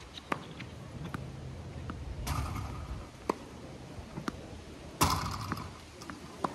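Tennis rally against a ball machine: a short noisy burst as the Slinger ball machine fires a ball, then about a second later the sharp crack of a racket hitting it. This repeats about every three seconds, with lighter ticks of ball bounces and footwork in between.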